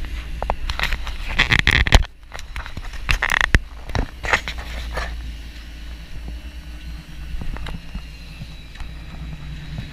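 Steady low rumble of a sportfishing boat running with its wake churning, with wind on the microphone. There are a few louder noisy rushes and knocks in the first four seconds.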